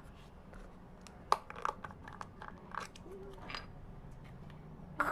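Slime being handled: a few sharp clicks and crackles, the loudest about a second and a half in.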